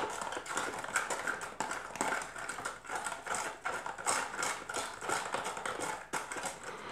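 Plastic measuring scoop stirring hydrogen peroxide and oxygen-bleach laundry detergent in a plastic tub to dissolve the powder: rapid, irregular clicks and knocks of plastic on plastic over the swish of the liquid.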